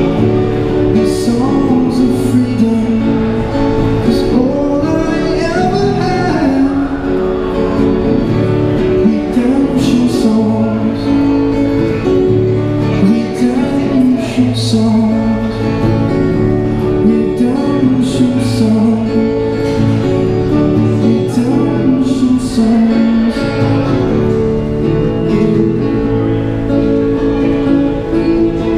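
Yamaha acoustic guitar strummed and picked through a Roland Cube Street EX amplifier, playing a chord progression, with a man's singing voice at times.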